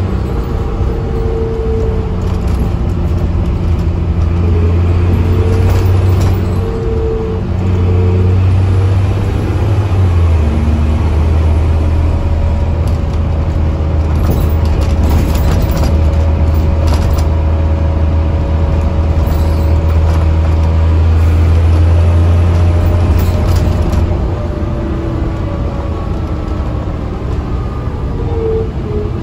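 Dennis Trident double-decker bus with Alexander ALX400 body under way, heard from the upper deck: a loud, steady engine drone that drops in pitch about ten seconds in, as on a gear change, with a thin whine climbing slowly beneath it. The drone eases off near the end, and there are a few light clicks around the middle.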